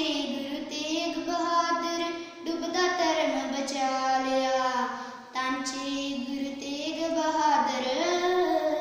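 A young girl singing a Punjabi devotional poem in long held notes, in three phrases with short breaks about two and a half and five and a half seconds in.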